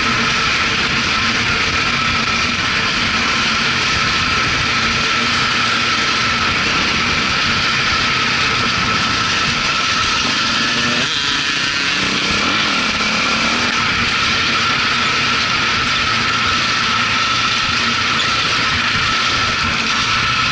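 The four-stroke single-cylinder engine of a 2004 KTM 400 EXC enduro motorcycle, running steadily while riding, heard from the bike's on-board camera. The engine pitch changes briefly about eleven seconds in.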